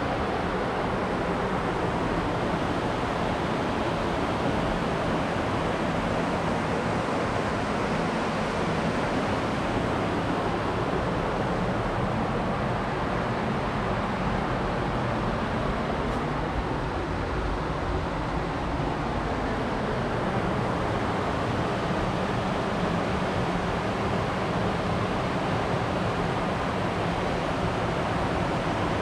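Steady rush of a large spring's outflow running fast over rocky rapids, an even, unbroken wash of water noise.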